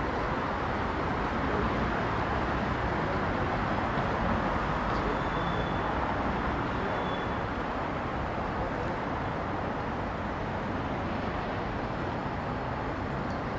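City street ambience: a steady wash of road traffic passing through an intersection.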